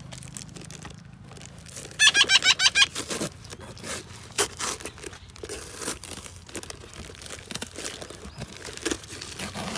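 A young parrot gives a quick run of about eight sharp calls about two seconds in, the loudest sound here. Around it, crinkling and clicking handling noise goes on throughout.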